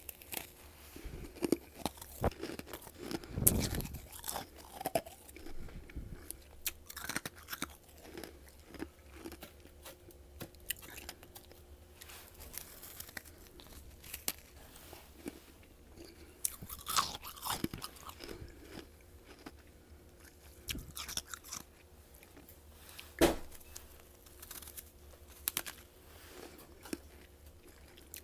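A person biting and chewing crunchy freezer frost close to the microphone: irregular crisp crunches coming in clusters, with one loudest crunch about three-quarters of the way through.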